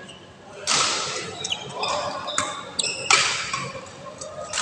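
A badminton rally: sharp racket hits on the shuttlecock that ring on in the large hall, the loudest about a second in and about three seconds in, with shoes squeaking on the court floor between them.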